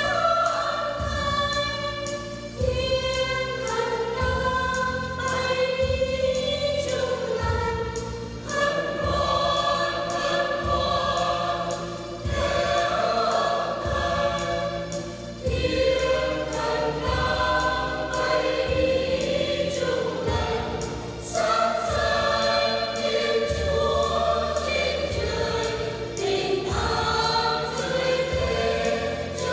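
Church choir singing a Vietnamese Christmas song in sustained, held notes over an accompaniment with a low bass note pulsing about once a second.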